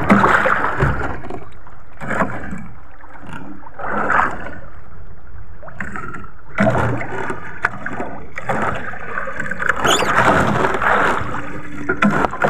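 Choppy sea slapping and splashing against the hull of a small outrigger boat, in surges every couple of seconds.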